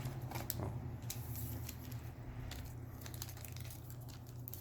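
A trading-card booster pack wrapper crinkling and tearing as it is opened, with scattered small rustles and clicks over a steady low hum.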